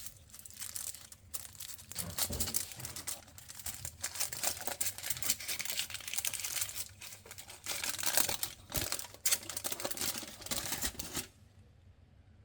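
Chocolate bar wrapper crinkling and tearing as it is handled and unwrapped, in dense bursts of crackling that stop about a second before the end.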